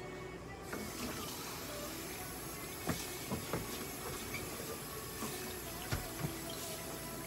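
Water running steadily from a tap into a sink, turned on about a second in, with a few soft knocks and clicks.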